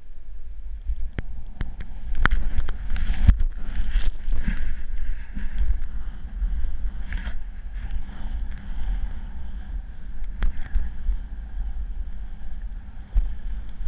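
Wind buffeting the microphone of a helmet-mounted action camera on a fast descent through soft snow, a steady low rumble throughout. Rushes of hissing snow from about two to five seconds in and again briefly later, with a few sharp knocks.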